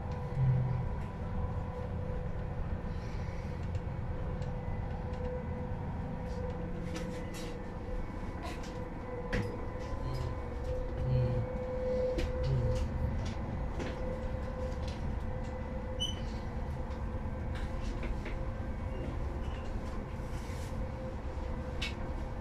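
Passenger train carriage in motion, heard from inside: a steady low rumble of wheels on rails with scattered sharp clicks and knocks, and a faint steady hum running over it.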